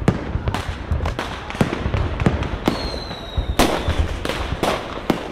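Fireworks sound effect: a rapid, irregular string of sharp bangs and crackles, with a high thin whistle about three seconds in that drops slightly in pitch over about a second.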